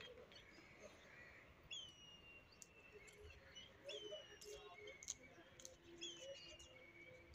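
Faint bird calls: a short whistle that drops in pitch, given three times about two seconds apart, over a quiet outdoor background with a few small clicks.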